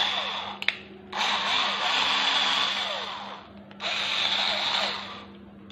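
Cordless electric screwdriver's motor whirring, spinning a bit in its freshly repaired front socket, in a few bursts, the longest about two seconds. This is a test run to check that the replaced socket and its spring hold the bit.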